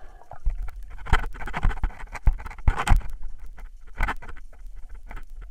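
Underwater handling noise: irregular clicks, taps and scraping with a few short rushes of water noise over a steady low rumble, as a speargun and camera move through submerged snags.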